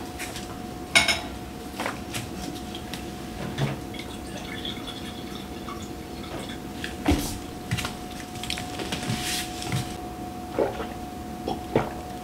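Scattered clinks and knocks of dishes and a drinking glass being handled, over a steady faint hum.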